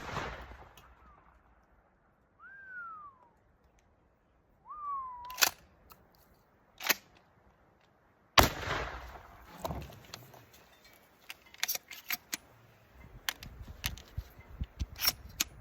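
Mossberg Maverick 88 pump-action shotgun: the echo of one shot fades at the start, and a second shot goes off about eight seconds in, its report dying away slowly. Between them a bird chirps twice, and sharp clicks and clacks come before and after the second shot.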